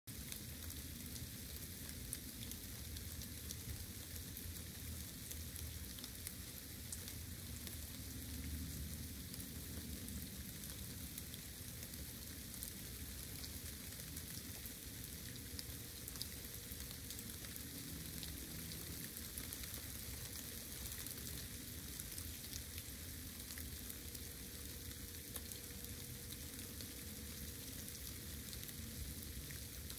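Steady rain: a constant hiss with many small drop ticks, over a low, uneven rumble.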